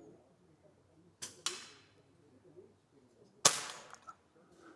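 An air rifle firing a single shot about three and a half seconds in: one sharp report with a short ringing tail. About a second in come two quieter sharp clicks.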